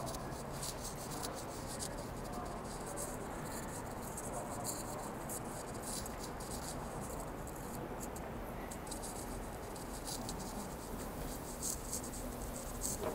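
Footsteps ticking irregularly on a hard station floor over the steady hum of an indoor station concourse, with a few louder clicks near the end.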